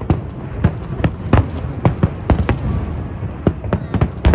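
Aerial fireworks shells bursting: an irregular string of sharp bangs, about three or four a second, over a steady low rumble, with the loudest bang near the end.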